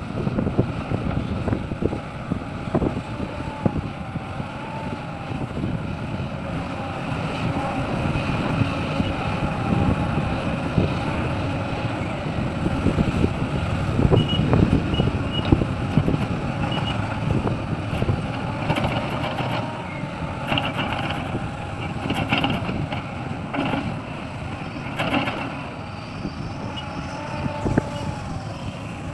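Diesel engine of a Sumitomo SH350 hydraulic excavator running under load, with a wavering hydraulic whine over the engine noise. Several knocks and clatters come in the second half.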